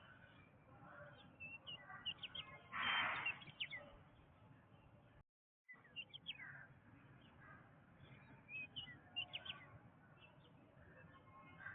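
Wild birds chirping and calling in a jungle soundscape: many short, quick chirps over a soft background hiss, with one louder, harsher call about three seconds in. The sound cuts out completely for about half a second near the middle.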